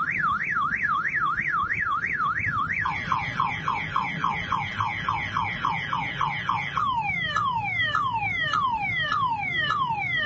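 Motorcycle anti-theft alarm running through its cycle of electronic siren tones: a fast up-and-down warble about three times a second, then quick falling chirps about five a second from about three seconds in, slowing to longer falling sweeps about two a second near seven seconds.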